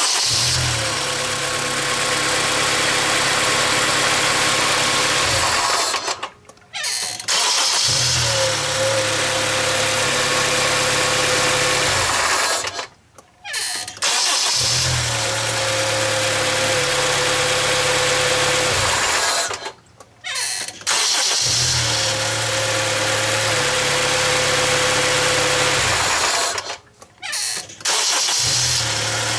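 Acura RSX Type-S four-cylinder engine idling and being switched off and restarted four times, about every seven seconds, in neutral with the clutch pedal up. Each shut-off brings the clutch/transmission noise that the owner later blamed on a failed Exedy Stage 1 clutch.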